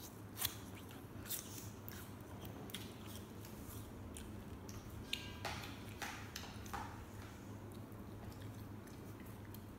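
Paintbrush working thick paint on a palette and canvas: scattered soft taps and squishy dabs, with a few louder scrapes about five to seven seconds in, over a steady low hum.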